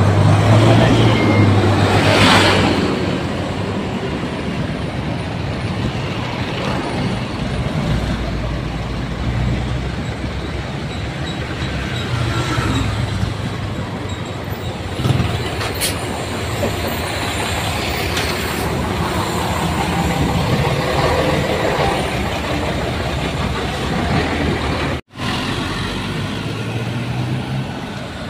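Busy road traffic passing close by: cars, vans, trucks and motorcycles going past one after another, the engine and tyre noise swelling and fading with each vehicle. The sound cuts out for an instant near the end.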